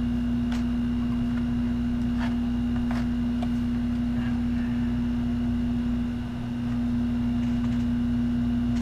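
A steady low electrical hum, one unchanging tone, with a few faint clicks from handling the handlebar grips and their bagged parts.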